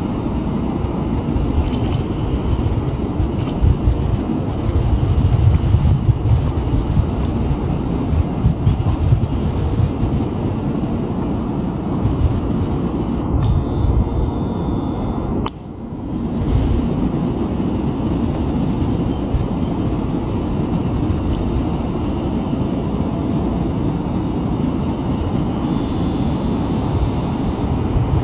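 Electric commuter train at a station platform, a steady low rumble that dips briefly about halfway through and then carries on.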